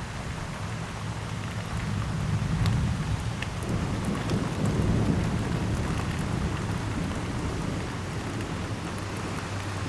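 Heavy rain falling steadily in a thunderstorm, with a low rumble of thunder that swells a couple of seconds in and fades again by about six seconds.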